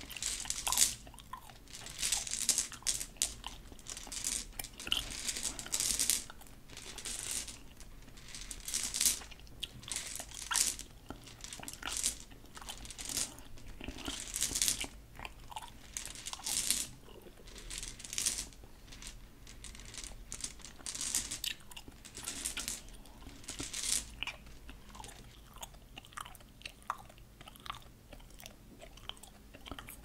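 Hard candy-coated gum pellets clicking and clattering against one another as fingers rub, stir and push them around, in irregular crisp clusters that grow quieter over the last several seconds.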